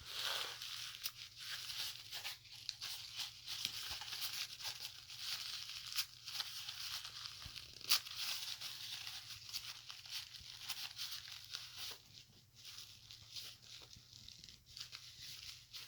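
Packaging being torn and crinkled by hand: irregular ripping and rustling with a couple of sharp snaps, growing quieter in the last few seconds.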